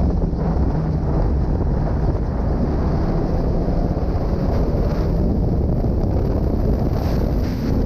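Racing snowmobile engine running under throttle through a turn, heavily buffeted by wind on the microphone. Its note dips as the sled slows for the corner and climbs again near the end as it accelerates.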